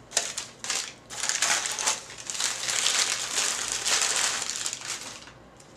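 Plastic packing material crinkling and rustling as it is handled and pulled away: a few short crackles, then about four seconds of continuous crinkling that stops shortly before the end.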